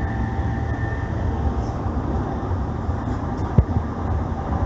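E531 series electric multiple unit running along the line, a steady rumble of wheels on rail. A faint steady whine fades out in the first second. One sharp knock sounds about three and a half seconds in.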